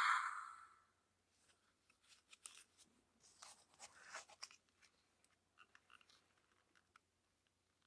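Music fades out over the first second, then faint scattered clicks and short rubbing noises of hard plastic as hands turn a DX Nouto Brace toy and bring a second one beside it.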